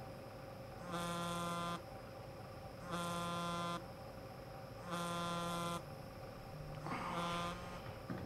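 Mobile phone buzzing on a bedside table for an incoming call: a buzz of just under a second repeating every two seconds, four times, the last one overlapped by a short rustle as it is picked up.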